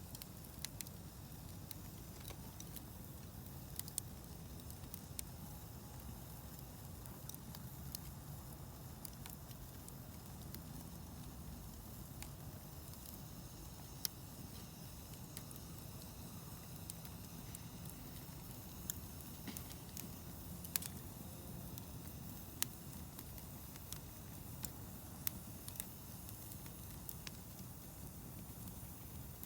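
Wood campfire crackling, with irregular sharp pops over a steady low rumble.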